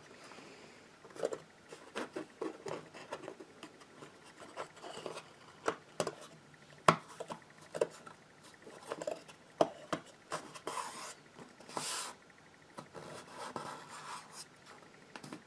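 Thin wooden kit pieces being handled and pressed together on a cutting mat: scattered light taps and clicks, the sharpest about halfway through, with a stretch of rubbing a little later, as a glued drawer back is slotted into place.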